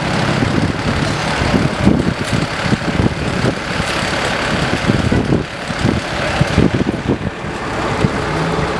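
Diesel engine of a parked DAF fire engine idling, with uneven low rumbling and street noise over it.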